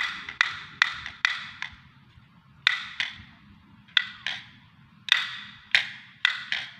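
A run of sharp, pitched 'ting' strikes, each with a short ring that dies away quickly. They come irregularly, two or three a second, with a pause of about a second partway through.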